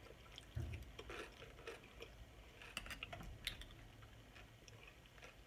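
Faint close-up chewing of a tortilla chip topped with taco soup: irregular small crunches and wet mouth clicks.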